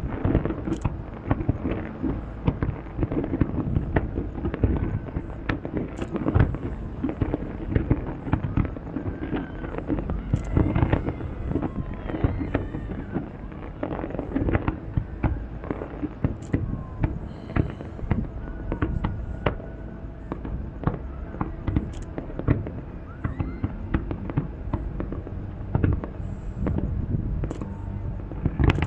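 Aerial fireworks display: a dense, unbroken run of bangs and crackles, several each second, with the loudest bursts standing out every few seconds.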